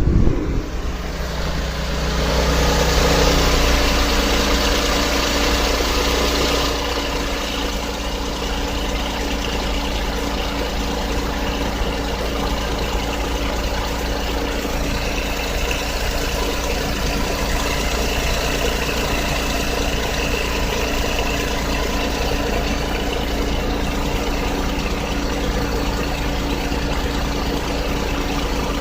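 Nissan Otti H91W kei car engine running steadily at idle, with the abnormal engine-bay noise the owner is documenting. It runs a little louder for a few seconds near the start, then settles to an even, unchanging sound.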